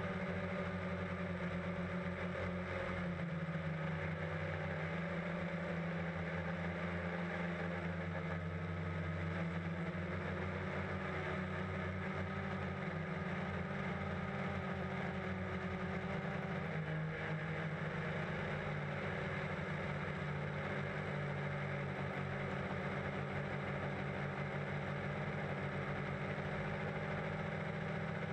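DJI Phantom quadcopter's electric motors and propellers humming steadily in flight, the pitch shifting a little now and then.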